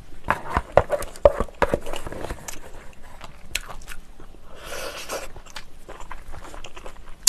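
Close-miked eating: a wooden spoon scraping and tapping a plastic instant-noodle tray, then chewing of spicy fried noodles mixed with chili seeds. Sharp clicks and crunches come thickest in the first couple of seconds, with a short breathy noise about five seconds in.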